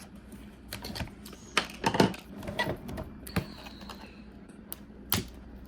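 Irregular clicks, taps and crinkles of plastic toy packaging being handled and opened.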